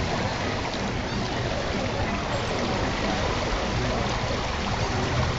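Steady outdoor rushing noise of wind buffeting the microphone over water lapping in a shallow lagoon, with faint voices of people wading underneath.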